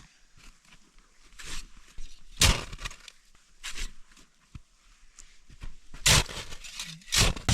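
Collapsible snow shovel digging into packed snow: about five separate crunching strokes at uneven intervals as the blade cuts and scrapes out blocks of snow.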